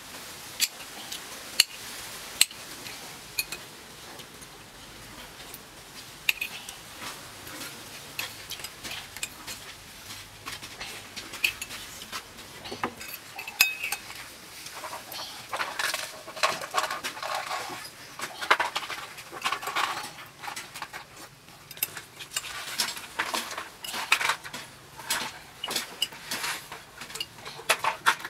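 A metal spoon clinks against a ceramic soup bowl in sharp single clinks. From about halfway there are denser runs of short clicky chewing and mouth sounds of eating.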